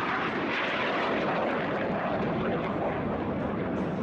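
Single Adour turbofan of a BAe Hawk 127 jet trainer in flight: a steady jet roar.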